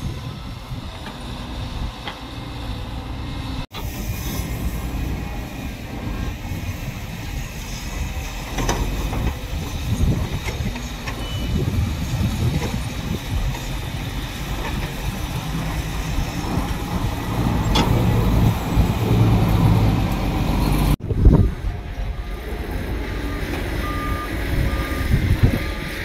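Heavy diesel construction machinery running, the engine rumble rising and falling with load, with a reversing alarm beeping repeatedly near the end.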